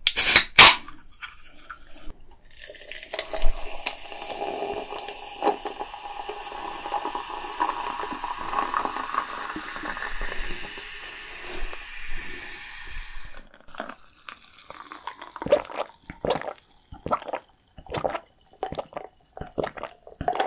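A can of Welch's soda cracked open with a sharp, loud pop and hiss. The fizzy soda is then poured into a glass pitcher full of ice and fizzes for about ten seconds before stopping suddenly. In the last seconds come a series of short gulping sounds as it is drunk from the pitcher.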